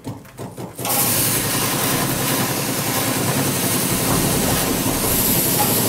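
Electric sprayer pump running, with its lance spraying a jet of water into the fins of a panel radiator. It sputters for a moment, then runs with a steady motor hum and spray hiss from about a second in.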